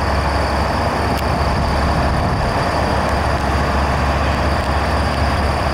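Diesel engines of aerial ladder fire trucks running steadily, a constant low hum with a broad rumble over it.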